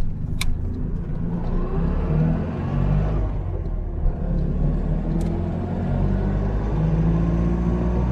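Polski Fiat 126p's air-cooled two-cylinder engine running as the car drives along: a steady low drone with a few short clicks.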